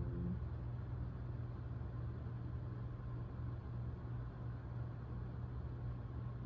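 Soft ambient music from the TV cuts off just after the start, leaving a steady low hum with a faint hiss of background noise.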